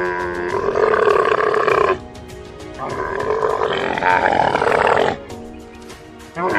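A camel bellowing: two long, loud calls of about two seconds each, then a short one near the end, over background music with a steady beat.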